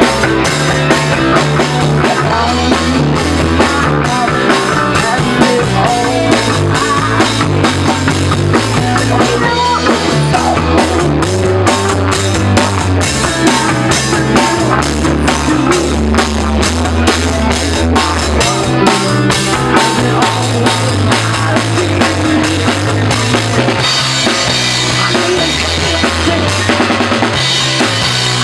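A rock band playing live together: a drum kit with cymbals and electric guitars, over a line of low notes that changes every second or so.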